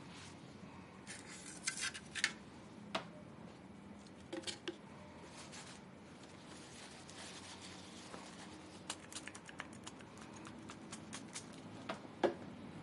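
Small clicks, taps and scrapes of hands working on a graphics card and its parts with small tools, with a run of quick light ticks in the second half.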